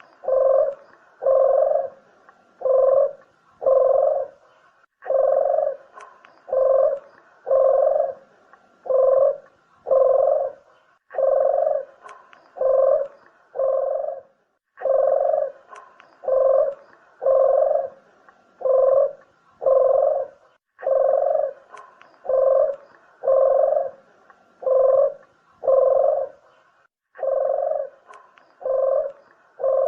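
Puter (collared dove) cooing: low, rounded coos a little over one a second, in phrases of four to six separated by short pauses, repeated over and over like a call played for luring doves.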